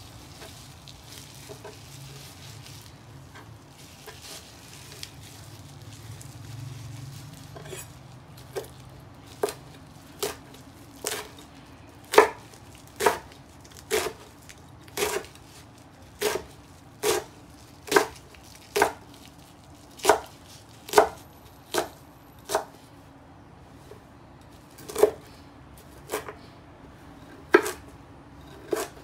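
Kitchen knife chopping curly kale on a wooden cutting board. After several seconds of quieter handling of the leaves, the knife strikes the board in steady chops about one a second, with a brief pause about three-quarters of the way through.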